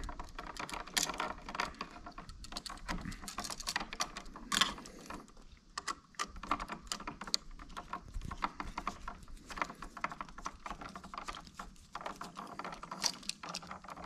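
A screwdriver turning the terminal screws of a wall switch while the wires are handled: irregular small clicks and scrapes, with one sharper click about four and a half seconds in.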